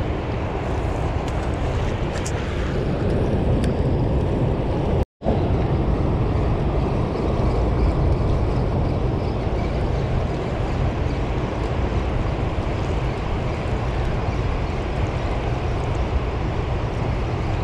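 Steady roar of turbulent river water released through Keystone Dam's open floodgates, with wind buffeting the microphone. The sound cuts out for an instant about five seconds in.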